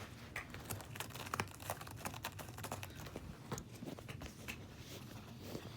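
Irregular small clicks and scrapes of a folding pocket knife being handled as fingers work at the blade, trying to open it one-handed.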